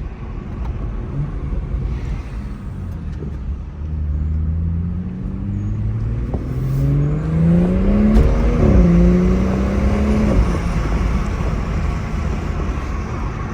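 BMW M340i's turbocharged 3.0-litre inline-six, fitted with a new aftermarket intake, accelerating hard as the car is driven past: the engine's pitch climbs, breaks about eight and a half seconds in, climbs again, then fades away.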